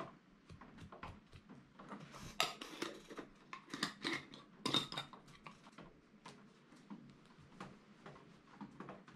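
A glue brush stroking and scraping over denim in quick scratchy strokes, with light clicks and knocks of handling on the worktable; the strokes are thickest and loudest in the middle.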